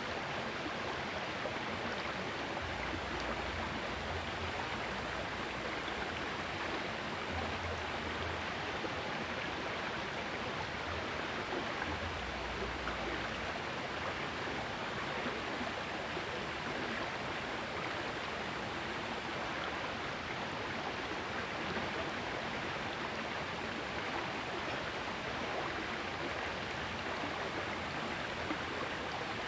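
Small river water flowing steadily. A low rumble comes and goes during the first half.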